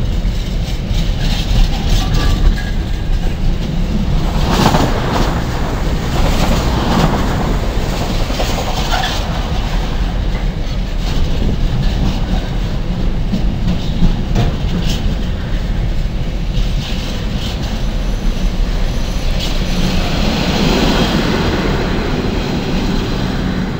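Container freight train passing close by at speed: a steady, loud rumble of the wagons' wheels on the rails, with a run of clickety-clack wheel beats over rail joints. The sound cuts off suddenly at the end.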